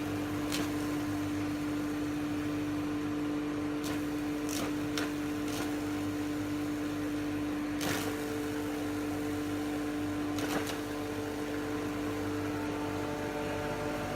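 Ultrafine powder mill running steadily with a constant mechanical hum and a steady tone, with a few scattered sharp clicks.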